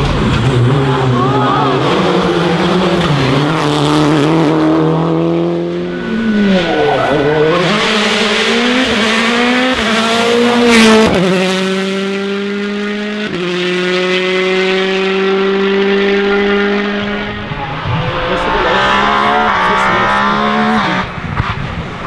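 Rally car engines at full throttle on a special stage. Revs climb steeply and drop sharply at each upshift, and a car slows and pulls away hard from a tight corner, with some tyre squeal.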